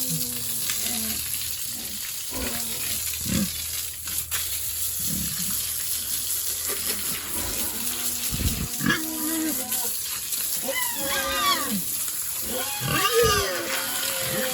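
Pigs grunting and squealing, with several short pitched calls in the second half, over a steady rush of running water and a few low thuds.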